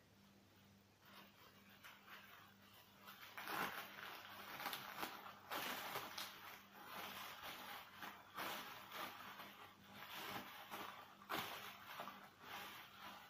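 Plastic cling film crinkling and rustling as it is unwrapped by hand, in irregular faint crackles that grow busier about three and a half seconds in.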